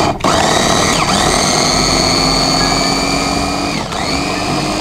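Electric mini food chopper's motor running steadily as its blade minces mushrooms finely. It stops for an instant just after starting, then dips in speed and picks up again near the end.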